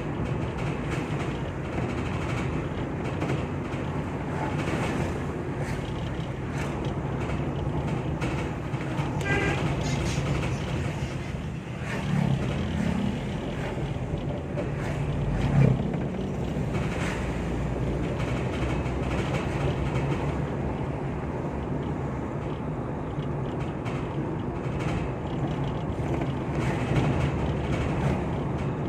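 Vehicle driving, with steady road and engine noise and irregular rattles and knocks throughout, the loudest thump about halfway through. The title takes the rattling for the strange sound of the keranda, the funeral bier, after carrying a body.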